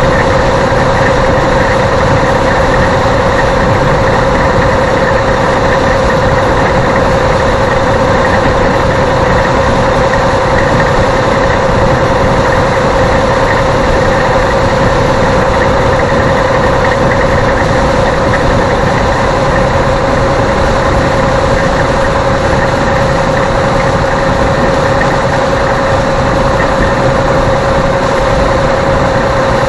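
Steady engine and road noise inside a vehicle's cabin while driving at highway speed, with a constant mid-pitched hum over it.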